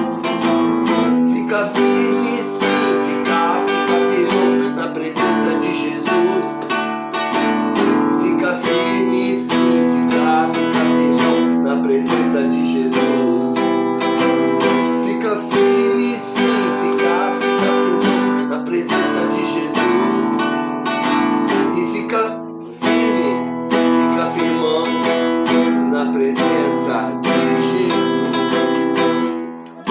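Acoustic guitar strummed steadily, playing an instrumental passage with sustained chords.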